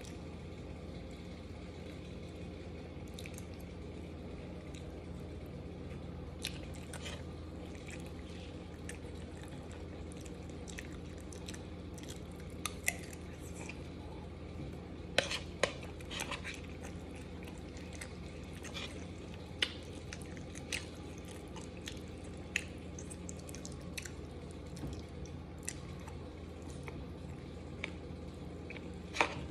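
Close-up eating sounds: a metal fork tapping and scraping in a bowl, with wet slurping and chewing of creamy Alfredo noodles. Sharp clicks are scattered throughout, louder around the middle and near the end, over a steady low hum.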